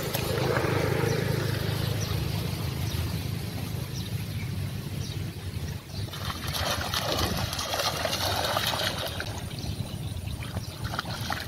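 Dogs splashing and sloshing as they wade through shallow floodwater, most noticeable from about six seconds in, over a steady low rumble.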